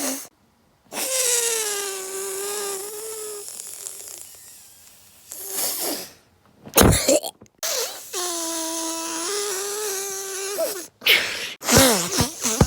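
A person making vocal noises with sniffs: two long high-pitched whines, each lasting a couple of seconds, separated by short sharp sniffs through the nose.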